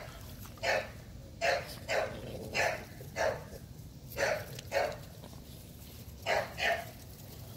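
American Bully puppy barking: about nine short barks spaced irregularly, with a pause of over a second late on before two more close together.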